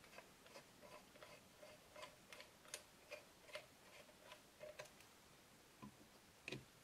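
Faint, irregular clicking, about three clicks a second, of a screwdriver driving small screws into a spectrum analyser's front panel.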